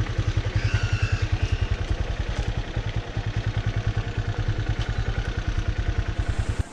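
Motorcycle engine running with a rapid, even pulse, with a brief high-pitched sound about a second in.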